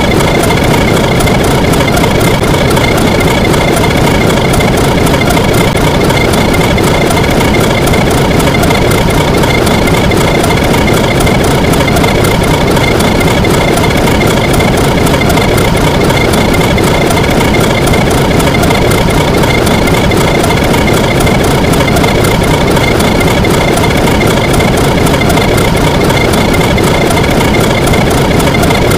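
A loud, steady engine-like running noise that does not change.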